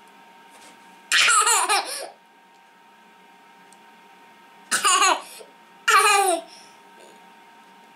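A toddler laughing in three bursts of high, gliding giggles: one about a second in, another near five seconds and a third a second after that.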